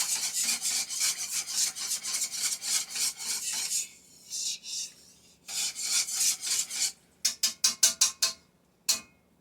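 A utensil stirring a thick homemade Alfredo sauce in a pot, scraping the pan in rapid strokes while the sauce cooks and thickens. The stirring breaks off about four seconds in, starts again, and ends with a handful of quick separate strokes.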